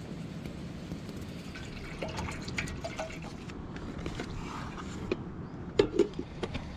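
Water dripping and trickling, with scattered small clicks and knocks, over a steady low rushing noise.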